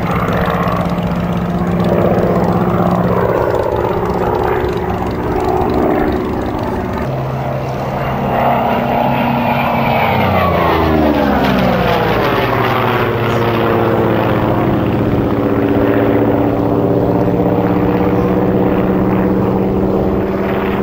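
Vintage single-engine propeller fighter flying a display overhead, its piston engine droning steadily. Around ten seconds in the pitch falls sharply as it passes over and away, then the drone settles at a lower pitch.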